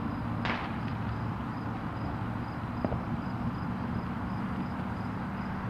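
Steady low rumble of road traffic with a low engine hum, a brief hissing burst about half a second in and a faint click near three seconds.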